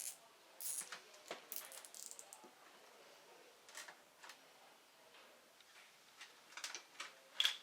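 Metal engine parts being handled on a workbench: scattered light clicks and clinks, with a brighter, ringing metallic clink near the end.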